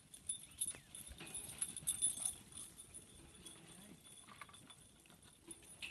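Small mob of sheep trotting on hard, dry ground, their hooves clattering in a run of quick clicks that is busiest in the first couple of seconds.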